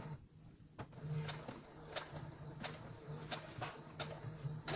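Electric sewing machine stitching slowly through cotton fabric: a low motor hum with the needle clicking about three times a second, stopping briefly near the start.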